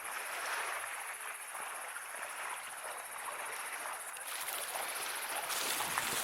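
Insects trilling outdoors: a steady, high, finely pulsed buzz that drops out about four to five seconds in, with a few light clicks near the end.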